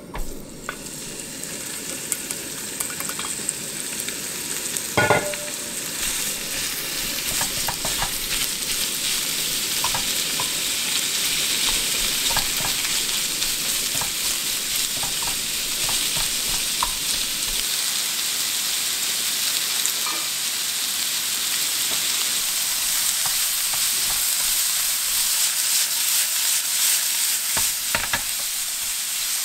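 Diced lamb frying in a hot oiled pan: it hits the oil with a sizzle that builds over the first few seconds and then holds steady. Wooden chopsticks click against the pan as the pieces are stirred, with one sharp knock about five seconds in.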